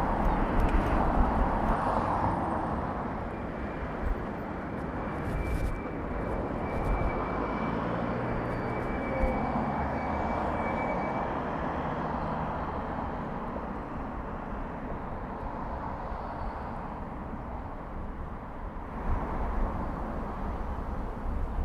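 Street traffic noise heard from a moving bicycle, a continuous hiss with low rumble that swells and fades as vehicles pass. For a few seconds in the middle a faint steady high tone runs over it.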